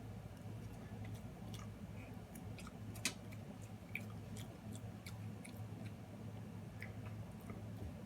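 A person chewing food close to the microphone, with scattered small wet clicks and one sharper click about three seconds in, over a steady low hum.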